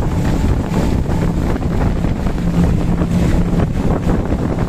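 Wind buffeting the microphone on a fast-moving RIB, over the rush of the hull through the water and the drone of outboard motors, with a faint steady engine hum through the middle.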